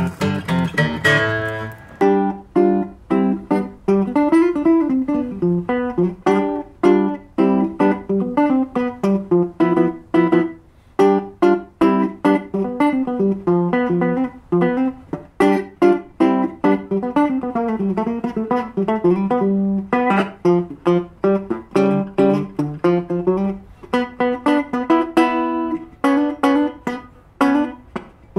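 Background music of fingerpicked guitar: a steady run of plucked notes, with a new passage starting about two seconds in.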